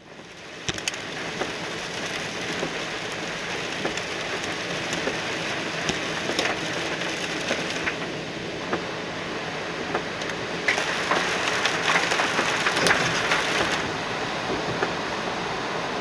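Torrential typhoon rain pelting a moving car's windshield and roof, heard from inside the cabin: a dense, steady hiss peppered with sharp drop hits. It fades in at the start and grows louder for a few seconds about eleven seconds in.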